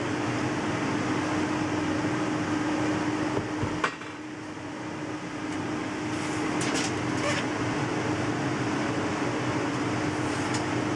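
A machine with a fan running steadily, a whooshing noise with a constant hum under it. A single sharp click about four seconds in, and a few faint light ticks a couple of seconds later.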